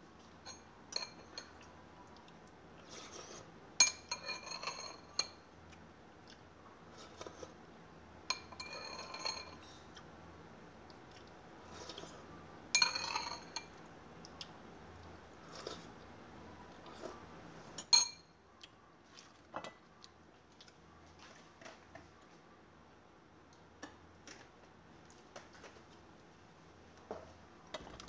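Dishes and cutlery clinking and clattering in a kitchen, in scattered short bursts with a ringing edge, plus a single sharp knock about eighteen seconds in.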